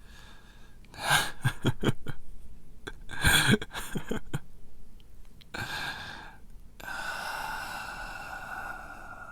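A man's heavy, laboured breathing, acted as the pained gasps of someone badly wounded: ragged rapid gasps about a second in and again around three seconds, then a long drawn-out exhale near the end.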